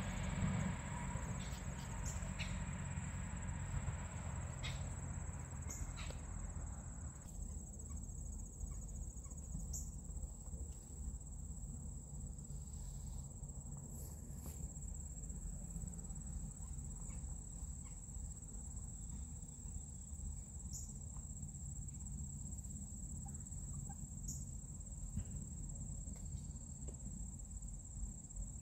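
Steady high-pitched drone of insects, such as crickets, over a low rumble, with a few faint clicks. A hiss in the background cuts off about seven seconds in.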